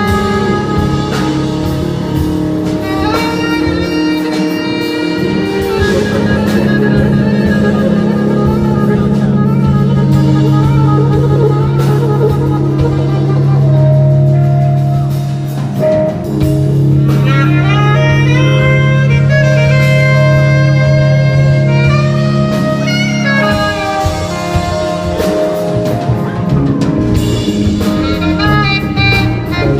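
Live soul-funk band playing an instrumental passage with no singing: horns carry long held and sliding notes over drum kit and bass.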